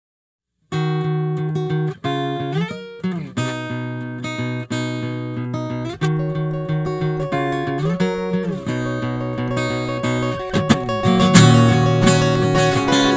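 Acoustic guitar music starting after a moment of silence: picked notes with sliding pitch changes, growing into fuller strumming near the end.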